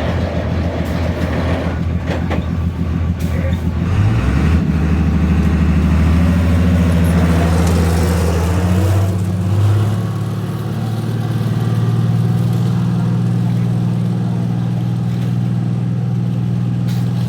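Diesel engine of a Kawasaki K12II road roller running steadily; its note changes about four seconds in and shifts again around ten seconds, then holds steady.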